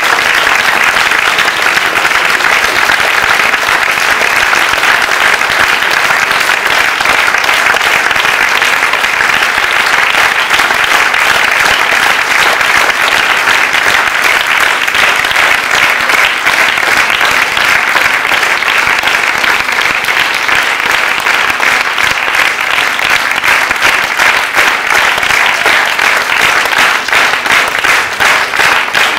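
Theatre audience applauding steadily at a curtain call. Near the end the separate claps become more distinct and fall into a more regular beat.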